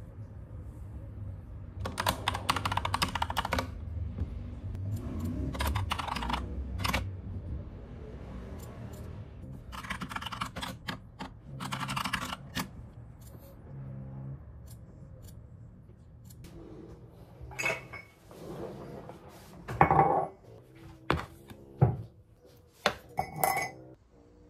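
Typing on a mechanical keyboard, fast rattling clicks that come in several bursts. Later come a few separate sharp knocks and clatters of kitchen things on a counter.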